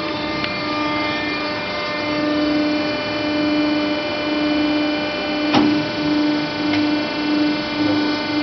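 Haco TSX CNC guillotine shear running: a steady motor hum, with a low tone that pulses on and off about twice a second from about two seconds in, and one sharp click a little past the middle.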